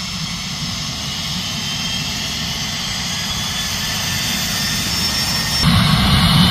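Cessna Citation CJ4 business jet's twin Williams FJ44 turbofans whining at taxi power, a steady high whine over a low rumble that grows gradually louder, then jumps abruptly louder near the end.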